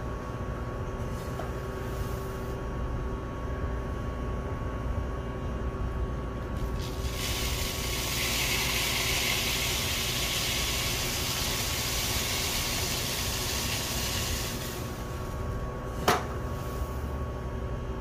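Electric fan of a budgie seed-cleaning machine running steadily at full speed with a constant hum and low rumble. From about seven seconds in, seed pouring through the machine adds a loud hiss for about eight seconds, and a single sharp knock comes near the end.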